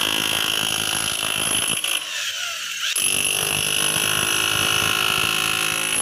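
Corded electric chipping hammer rapidly chipping hardened concrete off the steel bucket of a Case 580 backhoe loader, with a steady high motor whine over the hammering. The hammering breaks off for about a second, about two seconds in, then resumes.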